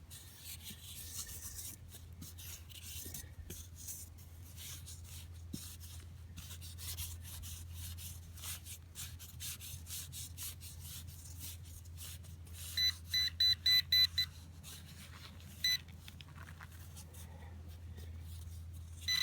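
Soil being dug and broken apart with scraping and rustling, then a metal detector beeping rapidly about six times over a target, with one more beep a couple of seconds later. A low steady hum runs underneath.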